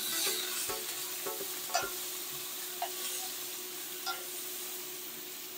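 Bitter melon and pork belly being stir-fried in a hot pan: a steady sizzle, with a few sharp clicks from the stirring utensil.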